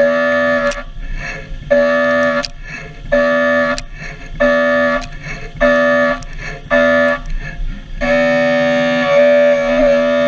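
Cutter in 4130 steel during high-speed machining, giving a steady pitched whine. The whine comes in short cuts of about half a second, roughly every 1.3 seconds, then holds for one longer cut of about three seconds near the end.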